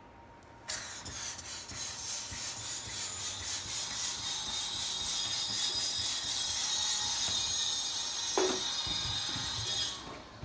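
Yellow plastic hand balloon pump worked in quick, repeated strokes, air hissing into a green latex balloon as it inflates, stopping abruptly near the end. A short falling squeak comes a little past eight seconds.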